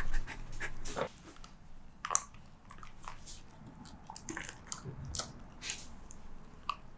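Corgi biting and chewing a frosted dog cupcake, close up: scattered sharp mouth clicks and crunchy bites at irregular intervals.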